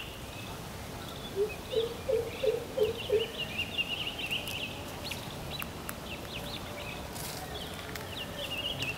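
Wild birds chirping and chattering in high, quick notes, with one bird giving a run of about five low, evenly repeated notes between about one and a half and three seconds in.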